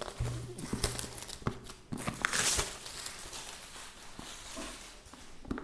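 Cardboard keyboard box being handled and opened: scattered knocks and taps, with a longer scraping rustle of cardboard a little over two seconds in.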